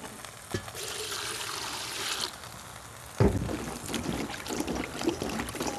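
Water poured from a stainless steel bowl into a pot, then beans being washed by hand in the water, with splashing and small knocks. A sharp knock about three seconds in.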